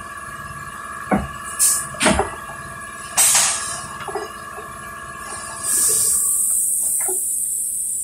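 A few sharp metal knocks and clanks during work under a car on a lift, where a transmission jack is being set under the transmission. They sound over a steady mechanical hum. About six seconds in the hum stops and a steady high hiss begins.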